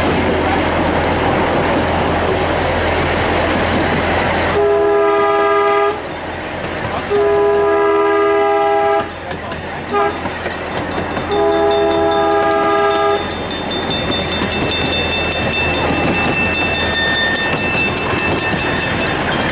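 Small-gauge passenger train running, its wheels rumbling on the rails, while the locomotive sounds its whistle in the grade-crossing pattern: two long blasts, a short toot and a final long blast, starting about five seconds in.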